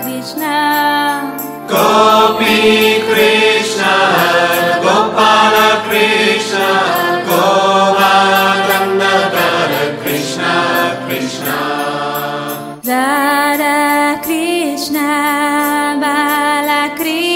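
Devotional Hindu bhajan to Krishna: voices chanting together over musical accompaniment, the arrangement changing abruptly about thirteen seconds in.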